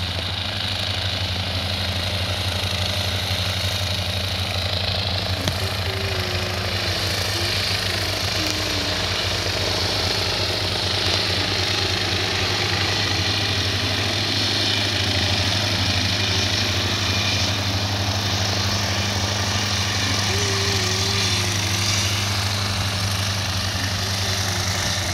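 Propeller engine of a Diamond Katana light aircraft running at low taxi power: a steady, even drone with propeller buzz, swelling slightly as it taxis closer.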